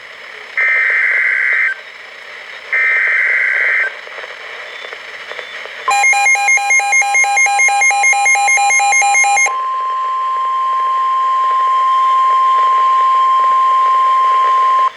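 Emergency Alert System SAME header: two one-second bursts of warbling data tone, with a short gap between them. About six seconds in, a steady single-pitch warning alarm tone begins, the 1050 Hz NOAA Weather Radio tone that announces a warning, and holds for about nine seconds. For its first three and a half seconds it is joined by a rapid electronic beeping, about four pulses a second.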